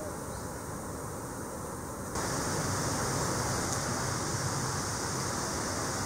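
Steady outdoor background noise, a hiss-like rush with no distinct events, which jumps louder and brighter about two seconds in.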